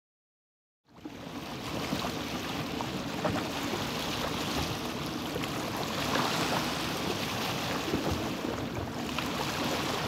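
Small sea waves washing and lapping in a steady rush that fades in about a second in.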